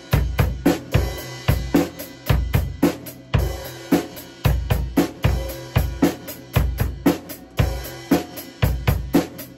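Acoustic drum kit played in a steady beat: bass drum and snare strikes alternating at an even tempo, with cymbal and hi-hat over them.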